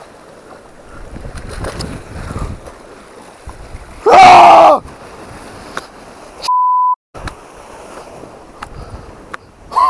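Sea water washing over shore rocks, broken about four seconds in by a loud, wordless yell that lasts under a second. About two seconds later a short steady censor beep plays over a sudden dropout to silence.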